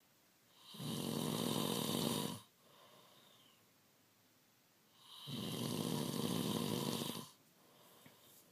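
A sleeping man snoring: two long, loud snores about four seconds apart, each lasting about two seconds, with softer breathing between them.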